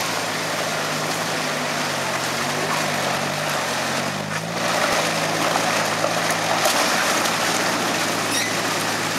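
Toyota Land Cruiser's engine pulling the 4x4 slowly through mud, its revs rising and falling, over a steady hiss. It grows a little louder about halfway through.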